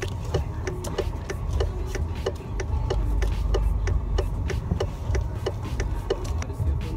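Car turn-signal indicator ticking steadily, about two and a half clicks a second, over the low rumble of the car.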